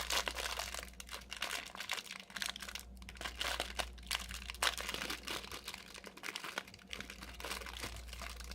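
Cupcake packaging crinkling as it is handled, with irregular crackles throughout.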